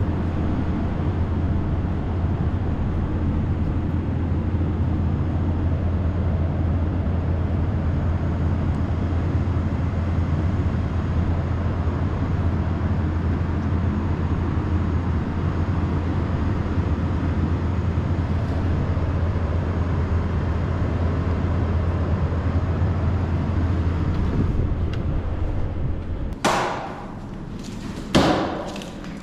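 A steady low droning rumble of outdoor urban background noise that drops away about 26 seconds in. Two sharp thuds follow near the end, like heavy footsteps at the top of a concrete stairwell.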